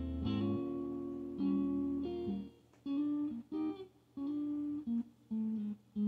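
Electric guitar played clean through a Fender Deluxe Reverb amp at bedroom volume, a string of single sustained notes with short gaps between them. A looped bass note sounds under the first half second.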